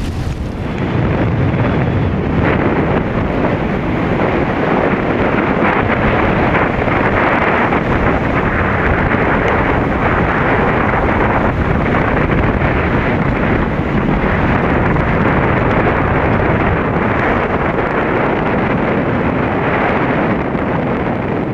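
Strong wind rushing over the microphone in a steady, loud, unbroken roar of noise.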